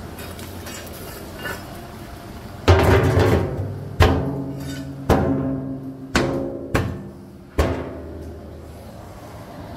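Six hard knocks at uneven intervals, each followed by a low ringing tone that dies away over about a second, the sound of a hollow resonant object being struck.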